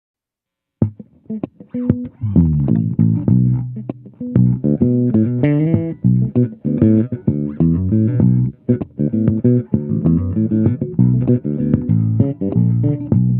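Cunningham RLJ6 headless electric bass playing a groove, starting about a second in. Its pickups are wired in series and the mid-range is boosted all the way at 300 Hz.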